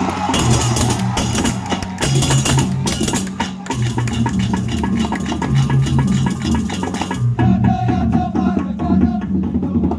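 Balinese balaganjur gamelan playing loudly: drums, clashing hand cymbals and ringing gongs in a fast, driving rhythm. About seven seconds in, the cymbal clashing thins out and the gongs and drums carry on.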